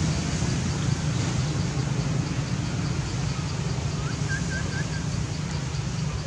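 Outdoor ambience: a steady low hum, with a faint high ticking repeating about three times a second and three quick high chirps about four seconds in.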